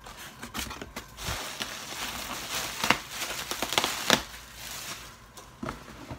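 Plastic packing material crinkling and crackling as it is handled and pulled out of a cardboard box, with two sharp, louder crackles about three and four seconds in.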